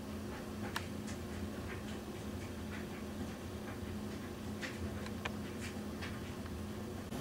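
Low steady machine hum with scattered faint light clicks, several seconds apart.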